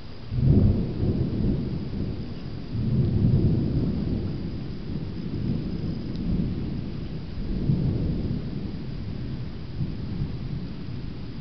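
Thunder: a long rolling rumble that breaks in sharply about half a second in, swells again about three seconds in and near eight seconds, then slowly dies away.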